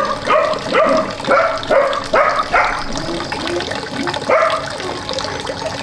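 A dog barking and yelping repeatedly in short calls that fall in pitch, about two a second for the first few seconds, then one more about four seconds in.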